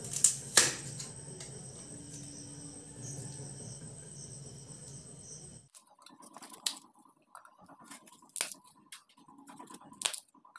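Thermocol (expanded polystyrene foam) being broken apart by hand: scattered sharp snaps and squeaky crackles, with the strongest snaps near the start and a few more later on. A low steady hum underlies the first half and cuts off abruptly a little past halfway.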